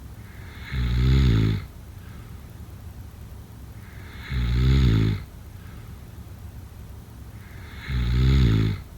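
A sleeper snoring: three snores about three and a half seconds apart, each lasting about a second.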